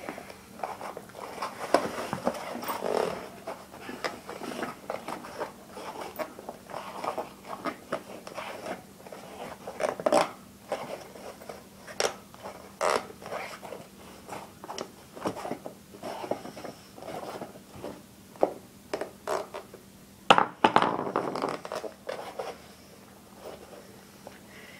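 BMX tire bead being worked back over the rim by hand: irregular rubber-on-rim scraping and rubbing with sharp clicks, the loudest about twenty seconds in.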